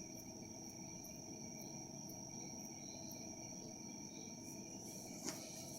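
Faint, steady high-pitched insect chirring over a low background hiss, with a faint click about five seconds in. No brush cutter engine is heard.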